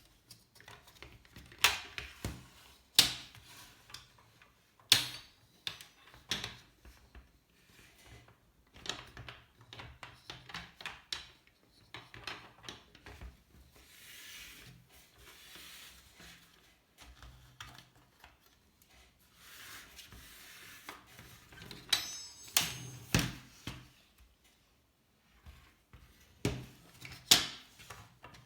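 Laptop cooling stand being handled: scattered sharp clicks and knocks of its parts, with softer rubbing and rustling in between.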